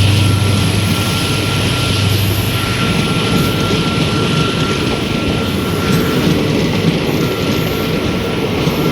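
Indian Railways diesel locomotive engine humming as it pulls away. A deep hum fades over the first few seconds, leaving a steady rumble and a thin high whine that stops about six seconds in.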